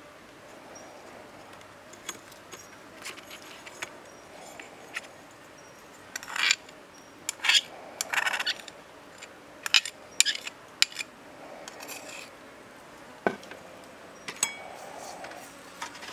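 Scattered light clinks, taps and scrapes of a small ceramic sauce bowl and hands against a stainless steel tray, with a few louder clinks in the middle.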